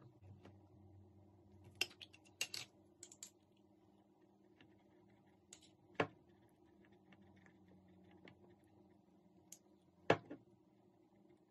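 A metal teaspoon clinking and tapping against a small glass jar of pesto as it is scooped out: a few scattered sharp clicks, a quick cluster early on and single louder taps about halfway and near the end, over a faint low hum.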